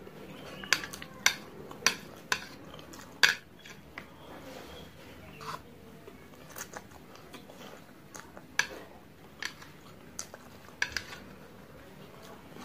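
Chopsticks clicking and scraping against a metal tray while instant fried noodles are slurped and chewed: a run of sharp clicks, thickest in the first few seconds and sparser later.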